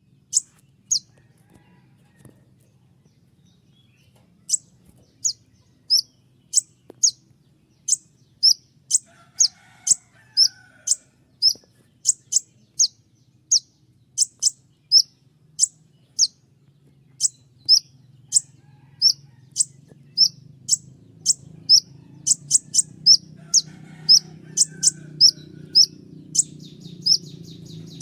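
Kolibri ninja (purple-throated sunbird) calling a long run of short, sharp, very high chirps, each one quickly falling in pitch, about one a second and coming faster near the end. A low steady hum sits underneath and grows louder over the second half.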